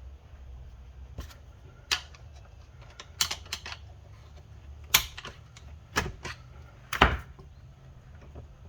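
Sharp metal-on-metal knocks and clicks from Honda Civic manual transmission parts being handled and seated during reassembly. They come in an irregular string of about eight to ten, with the loudest about five and seven seconds in.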